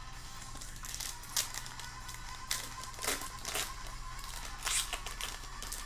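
Wrapper of a Topps Chrome Update trading-card pack crinkling and being torn open by hand, a handful of short sharp crackles spread through.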